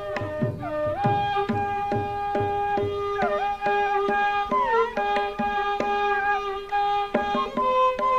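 Carnatic bamboo flute playing a ragamalika varnam in long held notes bent by sliding ornaments, over regular mridangam strokes.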